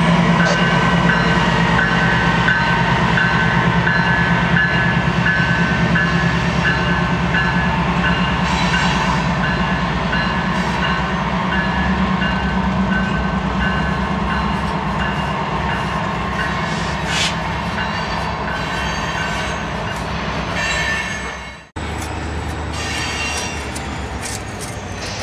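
Diesel-electric freight locomotives, GE ES44AHs with four-stroke GEVO engines, rolling past with a steady low engine drone. A high whine pulses on and off through the first half. The sound cuts out abruptly for an instant about 22 seconds in, then carries on a little quieter.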